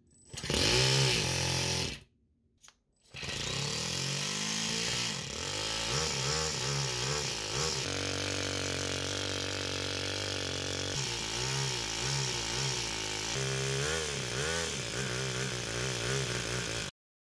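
Toyan FS-S100A single-cylinder four-stroke nitro model engine on an RC car: a short loud burst, a pause of about a second, then the engine runs steadily with its pitch swinging up and down as the throttle is worked. It cuts off suddenly near the end.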